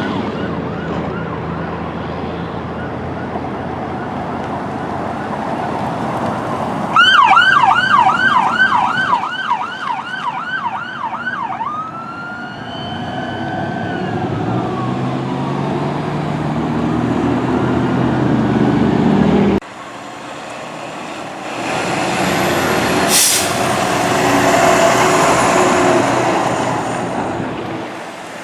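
Emergency vehicle electronic siren on a responding fire truck: a loud, fast yelp for several seconds that changes to a slower rising-and-falling wail, over the low rumble of a heavy diesel engine. Later another heavy vehicle runs, with one short sharp burst of hiss.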